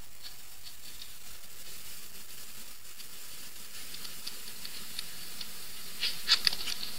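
Light scratching and tapping of a stylus writing on a screen, over a steady faint hiss, with a few sharper ticks about six seconds in.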